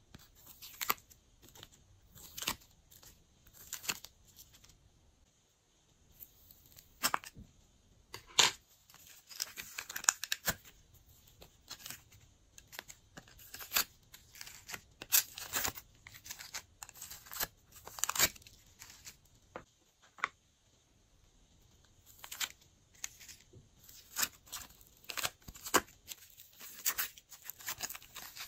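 Glossy slime being worked by hand, giving off irregular sticky clicks, snaps and pops in clusters, with a couple of short pauses.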